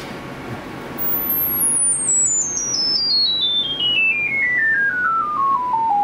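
Stepped sine-tone test sweep from audio measurement gear during a frequency-response measurement run. A single pure tone starts about a second in very high and falls steadily in quick small steps, about eight a second, to a mid pitch.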